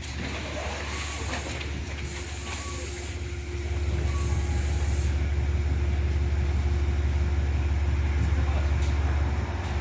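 Diesel commuter train standing at the platform after pulling in, its air brakes letting out bursts of hissing in the first few seconds, with a steady low rumble that grows louder about three and a half seconds in.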